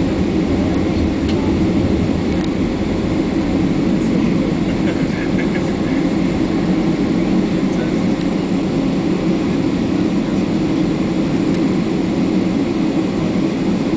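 Boeing 767-300 jet engines and airflow heard inside the cabin during taxi: a steady, even low rumble with no change in level.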